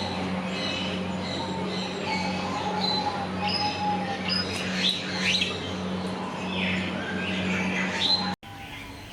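Many birds chirping and squawking at once, with short overlapping calls and quick pitch glides, over a steady low hum. The chorus stops abruptly about eight seconds in.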